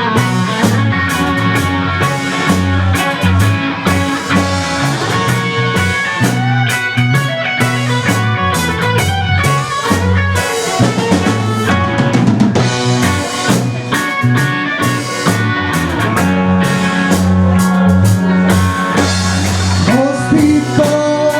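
Rock music: a drum kit keeping a beat under electric guitar and bass, played without words.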